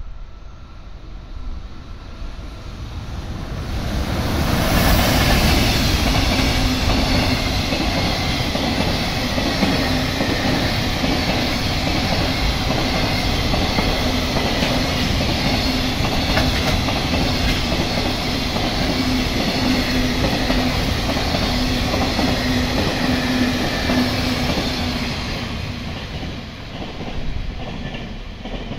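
JR Freight container train passing close by, the rumble and clatter of its wagons' wheels on the rails. It builds up over the first few seconds, runs loud and steady with a low hum underneath from about four seconds in, and dies away near the end.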